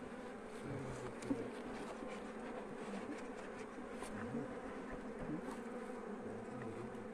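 Honeybees buzzing steadily around their disturbed comb as it is cut out of a tyre: a continuous low hum, with a short click about a second in.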